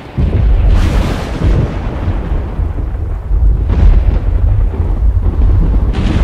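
Thunder sound effect: a deep, continuous rumble with two louder peaks of thunder, about a second in and near four seconds.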